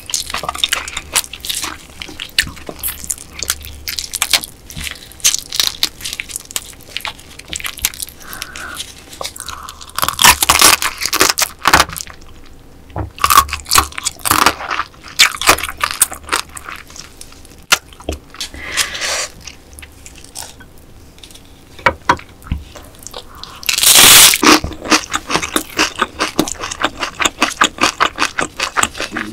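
Close-miked eating of marinated raw crab with rice: crunching and chewing made of many quick wet clicks, with louder bursts about ten seconds in and again near the end.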